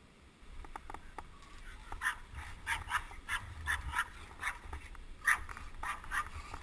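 Small dog yapping over and over, about two or three short yips a second, over low wind rumble on the microphone.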